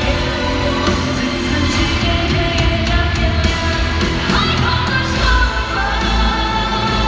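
Live pop-rock band music with a singer holding long, high sustained notes, recorded from the audience in a concert hall. About four seconds in, the sung line rises and wavers, and the bass grows heavier soon after.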